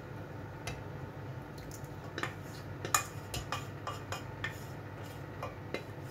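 Metal utensil scraping and clinking against the inside of a stainless steel pot as tomato sauce is scraped out. The clinks are irregular, the loudest about three seconds in.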